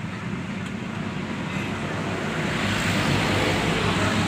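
A vehicle engine running with a low pulsing rumble, getting louder about halfway through.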